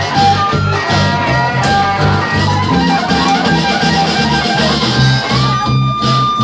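Live blues-rock band: a Les Paul-style electric guitar plays lead phrases over a pulsing bass guitar line and drums. Just after five seconds the guitar holds one long sustained note to the end.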